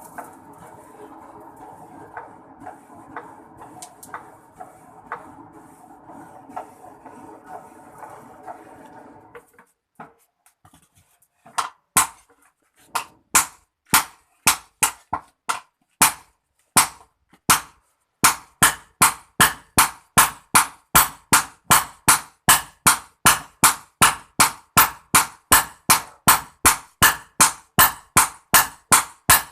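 A steady hum for the first nine seconds or so, then a hammer striking a hoe blade on an anvil: sharp, ringing metal-on-metal blows, scattered at first, then settling into an even beat of about two strikes a second as the blade is forged.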